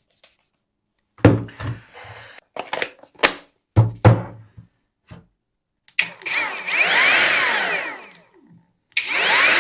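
Cordless angle grinder switched on twice with no load. Each time it spins up with a rising whine and then winds down. Before that come several clicks and knocks of the tool being handled.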